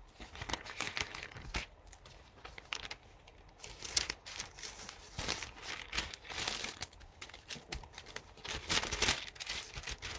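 Thin paper Bible pages being leafed through, rustling in irregular bursts.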